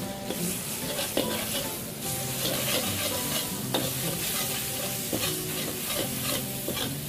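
Minced pork frying in hot oil with chili and bean paste in a wok, sizzling steadily while a metal ladle stirs and scrapes it, with a few sharp clinks of the ladle against the wok. This is the pork being browned in the seasoned oil for mapo tofu.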